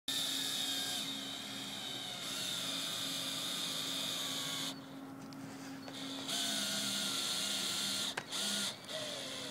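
Power drill running in two long runs with a steady high whine, driving a fastener for a roof solar mount, with a pause of about a second and a half between the runs.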